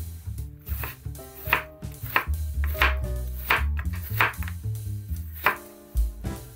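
Chef's knife slicing through cucumber onto a bamboo cutting board: a run of crisp strokes, about one every two-thirds of a second, starting about a second and a half in. Background music plays throughout.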